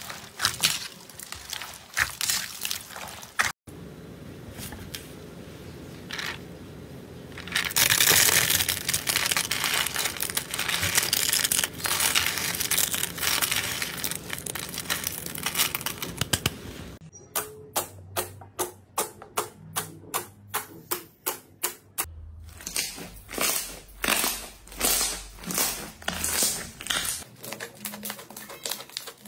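Hand-played slime ASMR sounds in quick succession. First comes wet squishing of bead-filled slime. From about 8 s there is dense crunching and crackling as brittle dry flakes are crumbled by hand. The last stretch is a regular series of sharp pops and clicks, about two to three a second, as thick slime is pressed and squeezed.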